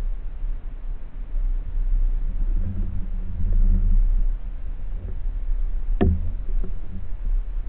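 Muffled low underwater rumble picked up through a camera's waterproof housing, with a short low hum in the middle and one sharp click about six seconds in.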